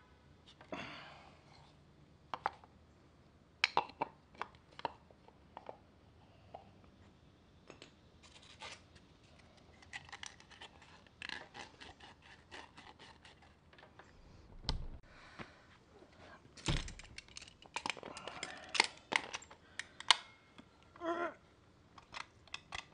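Handling and fitting parts onto a PVC pipe end cap: irregular clicks, taps and scrapes of plastic and metal, with two dull thumps in the middle. Near the end, locking pliers tighten a brass faucet fitting into the cap, with a short squeak.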